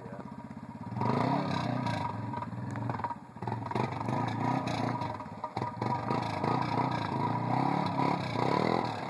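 Arctic Cat MudPro ATV engine revving hard while pushing through a deep mud hole. It runs steadily for about a second, then gets louder with repeated rises and falls in pitch. It eases off briefly about three seconds in.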